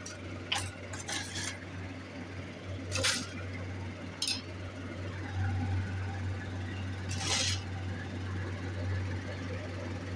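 Small metal pieces and tools clinking and clattering on a jeweller's workbench as silver parts are set aside, a handful of short separate knocks, over a steady low hum.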